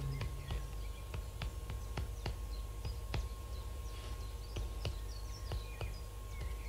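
Faint background noise during a pause: a low hum and a thin steady whine, with scattered soft clicks and a few faint high chirps.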